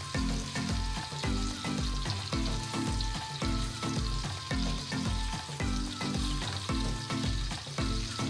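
Marinated chicken pieces shallow-frying in hot cooking oil in a frying pan, a steady sizzle, as a fork turns the pieces over. Background music with a steady beat runs underneath.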